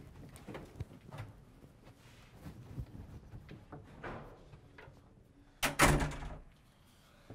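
A door is pushed shut with a loud double bang, two close knocks with the second the louder, after a few seconds of soft shuffling and light knocks.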